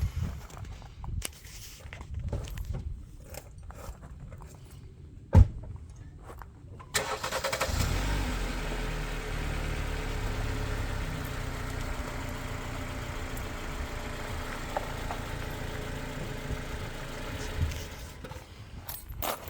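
A single sharp knock about five seconds in, then a vehicle engine starts suddenly about seven seconds in and runs steadily for about eleven seconds before dying away.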